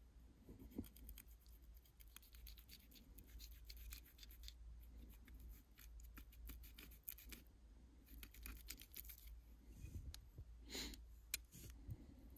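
Faint knife work on a small trout: a folding knife's blade cutting and scraping along the fish as it is gutted, a run of soft clicks and scratches with a couple of sharper snicks near the end.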